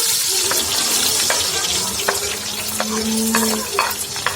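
Chopped onion frying in hot oil, a steady loud sizzle with short clicks and scrapes of a spoon stirring it in the pot.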